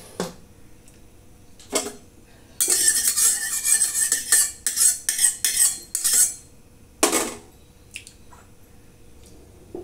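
A steel spoon scraping and clattering around inside an empty stainless-steel wok for about four seconds, followed by a single metallic clank and a few light taps.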